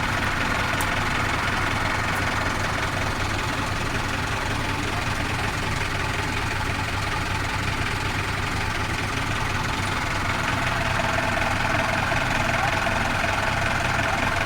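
Off-road vehicle's engine running steadily as it crawls along a rough trail, heard from on board, growing slightly louder after about ten seconds.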